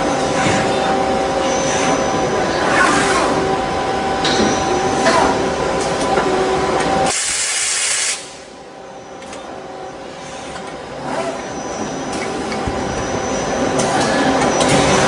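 Doosan PUMA QL300H CNC lathe running, a steady whine over hiss. About seven seconds in there is a loud hiss, then the sound drops sharply and slowly builds back up.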